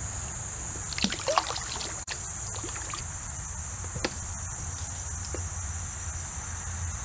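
Steady high-pitched insect chorus over a low rumble of water and wind, with water sloshing and a few sharp knocks at a kayak about a second in and a single knock near four seconds.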